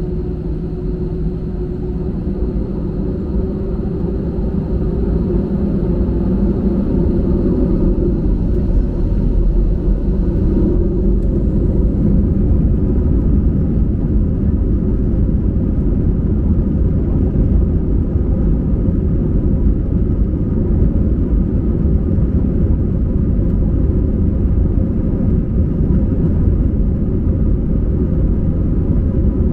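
Airliner jet engines at takeoff power: a loud, steady rumble that builds over the first several seconds and then holds.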